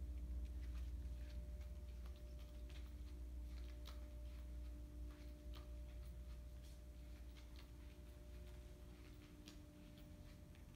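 Quiet room tone: a low rumble and a steady hum, with faint scattered ticks a few times a second.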